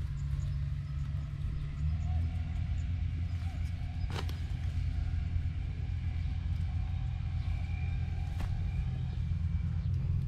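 An engine running steadily with a low, even rumble, with two sharp knocks, one about four seconds in and one near eight and a half seconds.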